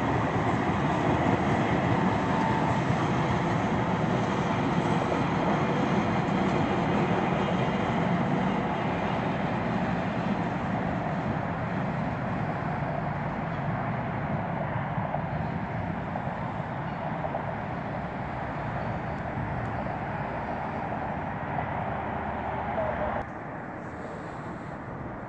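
A SEPTA Silverliner electric commuter train running past on the rails, a steady noise of wheels on track that slowly fades as the train moves away. The sound drops off suddenly near the end.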